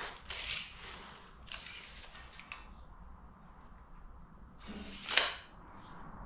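Steel tape measure being pulled out and let back in: three short rasping runs with sharp clicks, the last and loudest about five seconds in.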